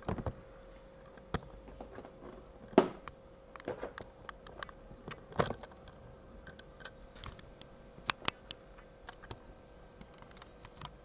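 Scattered clicks and knocks from a camera being handled and repositioned over a work table, the sharpest knock about three seconds in, with a faint steady hum underneath.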